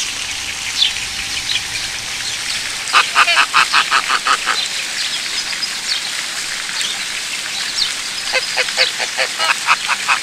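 Waterfowl calling: two runs of rapid repeated calls, about five a second, about three seconds in and again near the end, over a steady background hiss.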